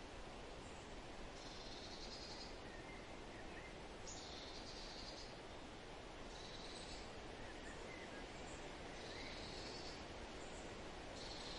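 Faint forest ambience: high, buzzy trilling calls, each about a second long, repeat every second or two over a steady hiss, with a few faint bird chirps in between.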